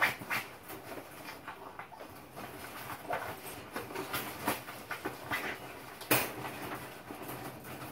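Wire dog crate rattling and clicking irregularly as a Norfolk terrier puppy in a plastic Elizabethan cone collar shifts about inside, the cone knocking and scraping against the bars and bedding; the loudest clatter comes about six seconds in.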